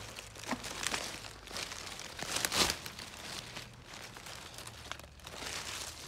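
Leaves and twigs rustling as branches of undergrowth are pushed aside by hand, in irregular bursts with a louder rustle about two and a half seconds in.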